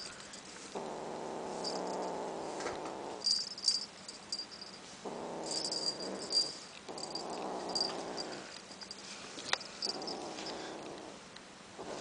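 Domestic cat growling low, four long growls of one to two and a half seconds each with short breaks between, as it guards a toy held in its mouth. Brief faint high-pitched ticks come in the gaps.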